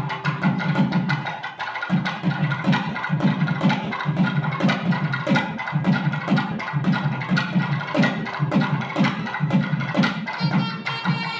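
Thavil, a South Indian barrel drum, played with a stick in a fast, steady rhythm of strokes over a steady held tone.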